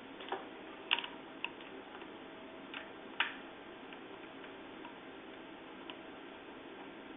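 Light, irregular metal clicks and ticks as an Allen key turns the handlebar clamp bolts out: about half a dozen, the sharpest about a second in and just past three seconds.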